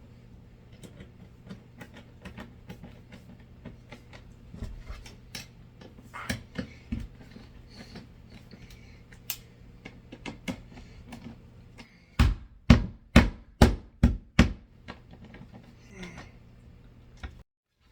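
Scattered light clicks and knocks of parts being handled, then six loud hammer blows in quick succession, about two a second, some twelve seconds in.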